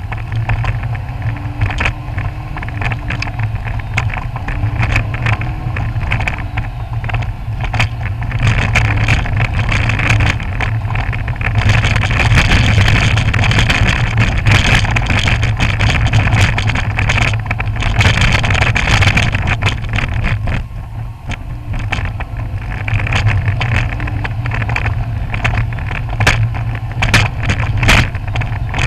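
Cabin sound of a Lancia Stratos driving on a gravel road: engine running with tyres crunching over gravel and frequent rattling knocks. The knocks come from the right rear shock absorber, whose cartridge has play in its case and strikes the case bottom on every bump. The gravel noise grows louder for several seconds in the middle.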